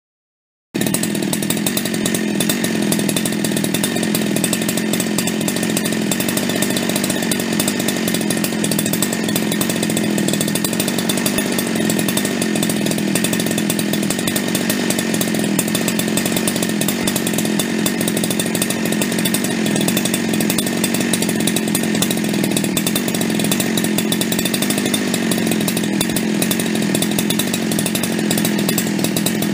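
Husqvarna 372XP X-Torq chainsaw with a big-bore Hutzl top end, a single-cylinder two-stroke, held at wide-open throttle with no load at about 12,900 rpm. The pitch stays steady throughout, the top speed it is tuned to.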